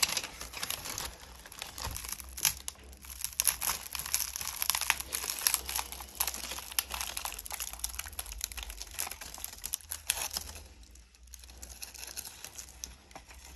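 Firmly pressed 2008 sheng pu-erh tea cake being pried apart with a knife: dense crackling and crunching of the compressed leaves breaking. The crackling thins out about ten seconds in.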